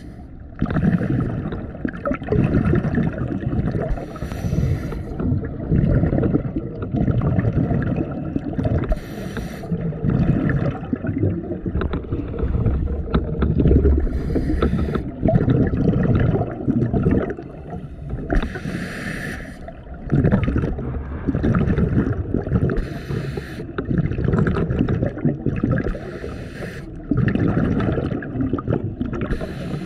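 Scuba diver breathing through an open-circuit regulator underwater: a short hiss with each breath in, about every four to five seconds, and a rumbling gurgle of exhaled bubbles between breaths.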